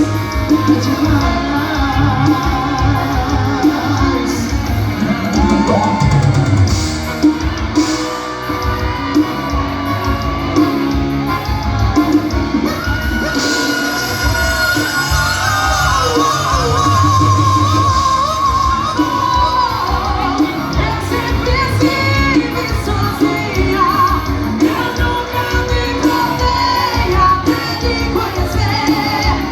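Live amplified band music with a vocalist singing over a steady beat.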